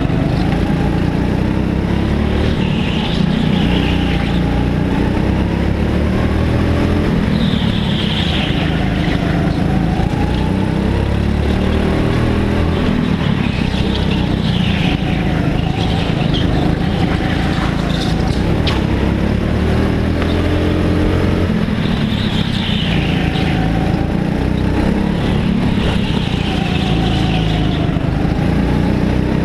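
Go-kart engines racing on a tight indoor track, the pitch rising on the short straights and dropping into the corners every few seconds, heard from a helmet-mounted camera, with short higher-pitched bursts now and then.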